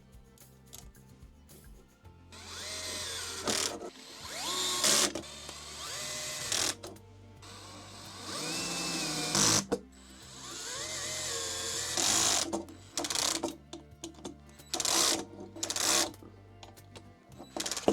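Small electric screwdriver driving screws in several short runs, its motor whine rising as it spins up and settling as each screw seats, over steady background music.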